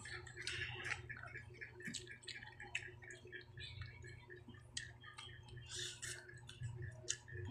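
Children eating rice with their hands: faint, irregular small clicks and smacks from chewing and from fingers picking at food on the plates, over a low steady hum.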